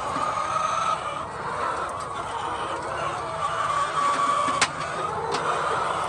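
A flock of white laying hens clucking continuously, with a sharp click a little past halfway and a fainter one shortly after.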